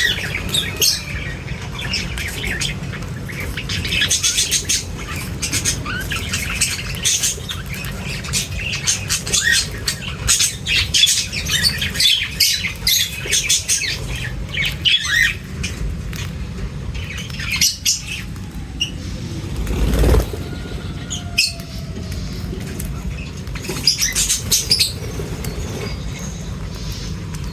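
A flock of birds chirping and squawking in many quick overlapping calls, with wing flutters, over a steady low rumble. A brief louder rush of noise swells and fades about two-thirds of the way through.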